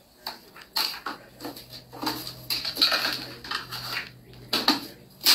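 Close rustling and clattering handling noise with a string of knocks and clicks, the sharpest knock just before the end.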